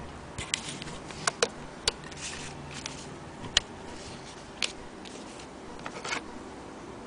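A scattered handful of sharp light clicks and taps at irregular intervals, the loudest about three and a half seconds in, over a faint steady low hum.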